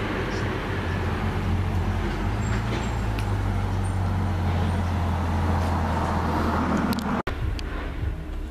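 A motor vehicle engine running close by, a loud, steady low rumble. It breaks off abruptly about seven seconds in, leaving a quieter background.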